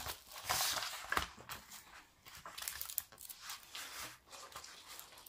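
Diamond-painting canvas with its clear plastic protective film rustling and crinkling as it is unfolded and pressed flat on a table, louder in the first second or so, then fainter scattered rustles.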